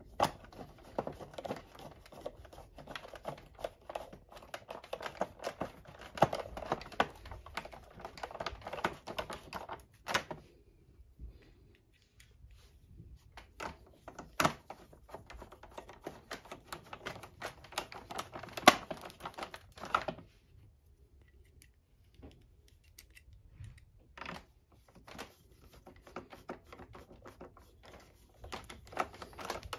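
Hand screwdriver driving screws back into a vacuum cleaner's plastic base plate: a long run of rapid clicking, a short pause, a second run, then fainter scattered clicks near the end.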